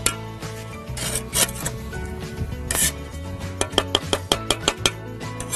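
A steel trowel scraping and rasping against wet mortar and brick in a few short strokes, over background music with a steady beat.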